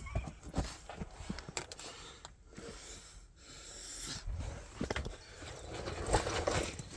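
A person climbing a steep earth bank: irregular scuffing and knocking footsteps on soil and debris, with hard breathing.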